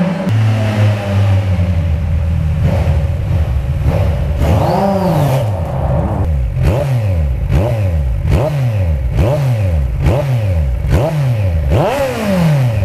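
Kawasaki Z1000SX inline-four through Toce three-port exhausts, echoing in a brick tunnel. It runs steadily at first, then from about two seconds in is revved again and again, about once a second, each rev climbing and falling back in pitch. Near the end it settles to a steady idle.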